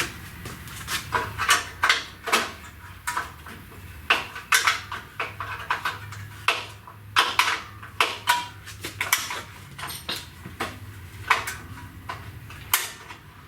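Hand tools clinking and clanking on metal in irregular sharp knocks while a ground post is worked loose, over a steady low hum.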